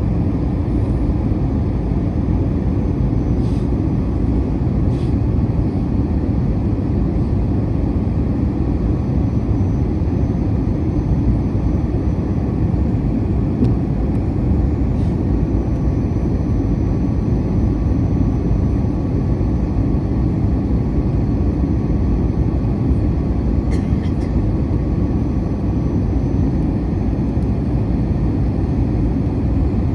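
Steady low rumble of engines and airflow heard inside the cabin of an Airbus A321-200 in flight, with a few faint clicks.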